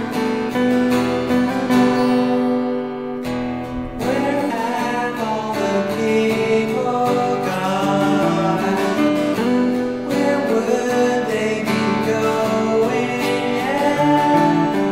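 A rock/pop song built on strummed acoustic guitar chords, with the chord changing a little past three seconds in and a wavering melody line joining from about four seconds in.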